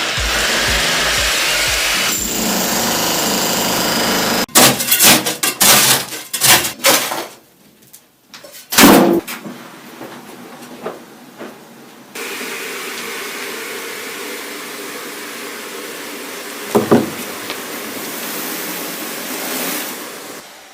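A power tool running steadily for a few seconds, then a series of sharp knocks and one loud bang, then the tool running again for several seconds with a single thump partway through.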